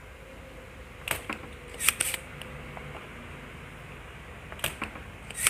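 Spring-loaded desoldering pump (solder sucker) being cocked and fired over melted solder on an amplifier board's potentiometer pins. There are two loud snaps about three and a half seconds apart, each with a lighter click before it.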